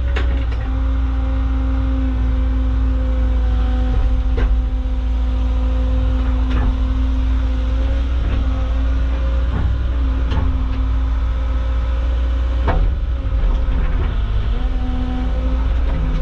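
Caterpillar excavator's diesel engine running steadily with a hydraulic whine that dips and shifts in pitch as the controls are worked, and several sharp clanks of the bucket and rock spaced a couple of seconds apart.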